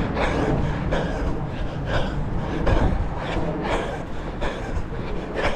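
A runner's heavy, rhythmic breathing mid-run, a breath about every half second to second, over the low rumble of wind buffeting the microphone.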